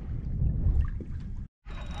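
Wind rumbling on the microphone over water lapping against a kayak hull, with a few small ticks. The sound drops out completely for a moment about one and a half seconds in, then returns with more hiss.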